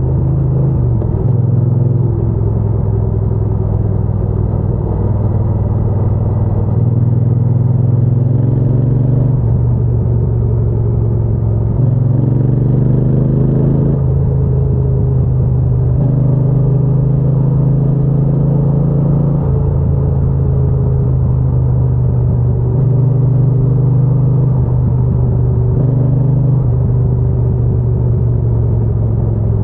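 Triumph Bonneville T120's parallel-twin engine and exhaust running on the road. Its pitch climbs and drops in steps every few seconds as the bike speeds up and eases off.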